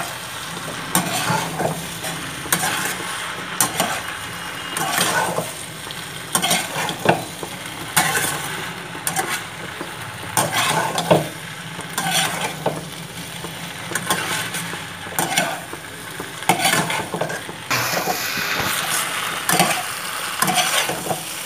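Metal spatula stirring and tossing macaroni with vegetables in a black kadhai, scraping against the pan in repeated strokes about once or twice a second, over a light sizzle of frying on a low flame.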